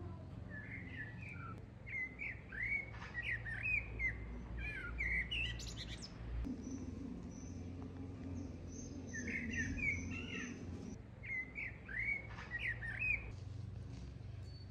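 Songbird singing in two runs of quick, chirping phrases, the first from about half a second to six seconds in and the second from about nine to thirteen seconds in, with thin high twittering between them. A low steady hum lies underneath.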